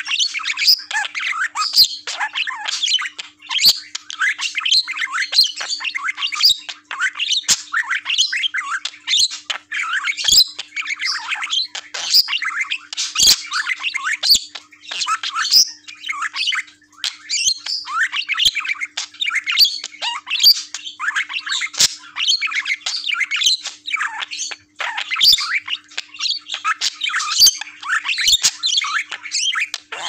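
Male budgerigar chattering nonstop close to the microphone: a fast, unbroken jumble of chirps, squawks and clicks.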